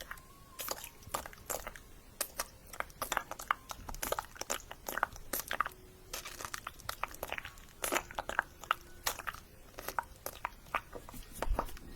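Close-miked ASMR mouth sounds: a dense, irregular run of quick wet clicks and smacks of the tongue and lips.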